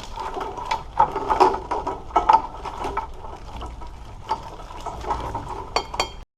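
Wiring harness being pushed down into an engine bay: irregular rustling, clicks and knocks of the loom and its plug connectors against engine parts. The sound cuts off suddenly near the end.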